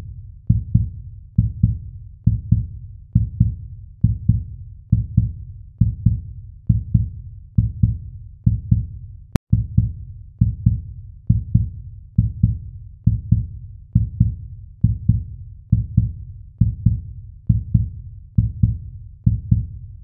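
Steady, muffled low thudding pulse, about three beats every two seconds, like a heartbeat or slow bass drum track; it drops out for an instant about nine seconds in.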